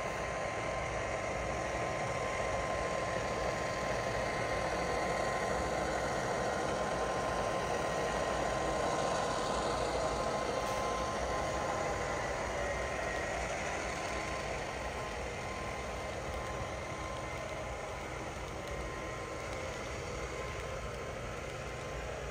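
HO-scale model train running on the layout: a steady mechanical hum of motor and wheels on rail with a faint constant whine, growing a little louder about nine seconds in and easing off toward the end.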